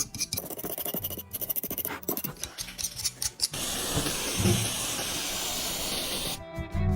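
Hand tool working the metal parts of a toy truck in rapid, irregular scraping strokes. About three and a half seconds in, the strokes give way to a steady, high, airy hiss that lasts about three seconds.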